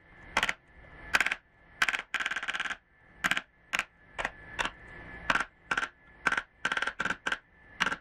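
A hammer striking the end of a screwdriver used as a makeshift chisel, cutting a deeper recess for a deadbolt latch plate in a wooden door edge. Sharp taps about two a second, unevenly spaced, some in quick runs, each with a short metallic ring.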